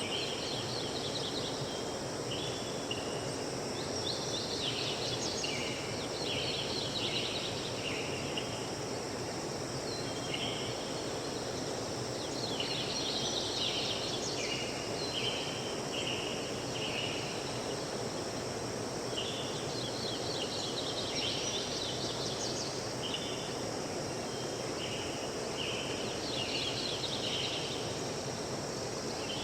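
Forest ambience: a bird sings repeated phrases of short chirped notes, stepping down in pitch, every few seconds. Beneath it is a steady high insect drone and an even background rush.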